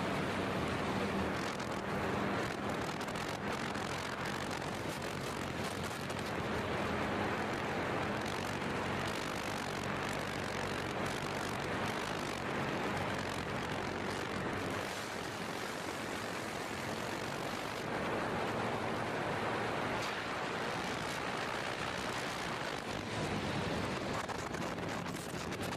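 Motorcycle cruising at highway speed: a steady rush of wind over the microphone with the engine's hum beneath it, holding an even level throughout.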